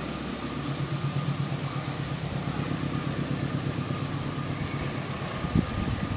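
An engine running steadily with an even low throb. A sharp knock comes near the end.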